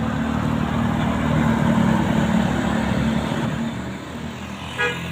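A bus engine running as it drives past, its low hum growing louder to about halfway through, then fading. A brief pitched sound comes near the end.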